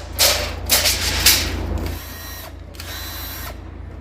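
Power tool spinning out bolts as a GM 5.3-litre V8 is taken apart to remove the cylinder heads: a few short bursts, then a steady whirring run of over a second starting about two seconds in.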